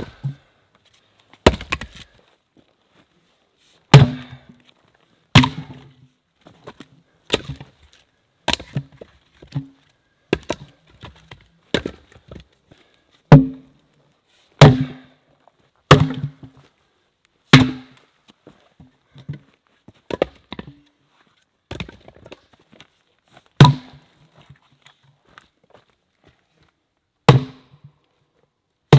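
Axe splitting firewood on a chopping block: a long run of sharp chops and wood cracking, roughly one every second or two, some much louder than others, with smaller knocks between.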